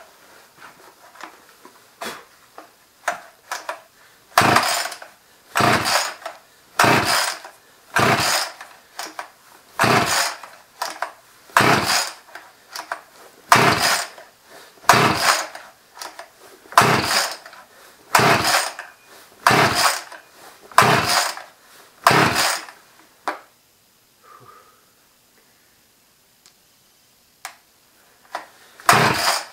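Husqvarna 50 two-stroke chainsaw being pull-started from cold: about fifteen quick pulls on the recoil starter cord, one about every second, each a short rip of the cord and the engine turning over without firing. The pulls stop for several seconds, then start again near the end.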